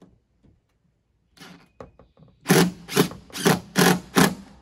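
Cordless drill driving the last screw through aluminium sheet into the roof framing, run in short pulses of the trigger: one brief whirr, then five loud bursts about two a second.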